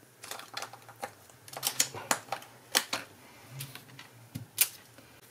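Stamping with a clear acrylic stamp block: an irregular run of light, sharp clicks and taps as the block is handled, knocked against the ink pad and paper and pressed onto the card.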